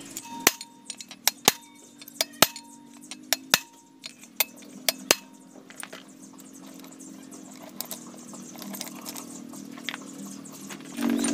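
Sharp metallic clinks of steel pistons being set into the cylinder block of a Komatsu PC200-8 hydraulic swing motor: about five loud clinks in the first five seconds among lighter taps, then only faint ticking. A low steady hum runs underneath.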